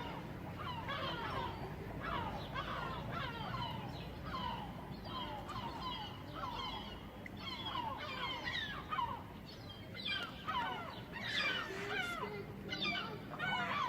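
Seagulls calling: a steady run of short, repeated calls, several overlapping, growing busier near the end.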